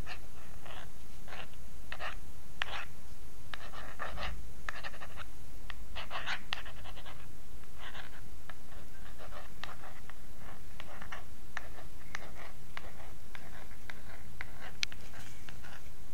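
Pencil scratching on paper in a string of quick, irregular strokes, heard over a steady hiss.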